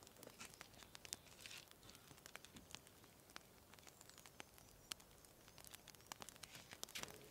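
Faint, scattered clicks and soft crinkles of hands handling raw grouse breast, pressing it into cracker crumbs and dipping it in beaten egg on paper plates.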